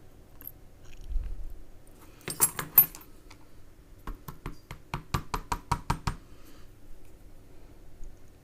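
Small sharp metal clicks and taps from a gutted Brinks R60 padlock and its loose parts being handled: a brief cluster about two seconds in, then a quick run of about ten clicks, roughly five a second, near the middle.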